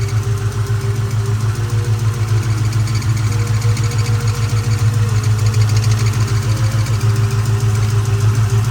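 2004 Mustang GT's 4.6-litre V8 idling steadily, with a fast, even pulse.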